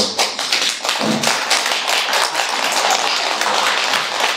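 An audience applauding: many hands clapping at once in a dense, even round of applause.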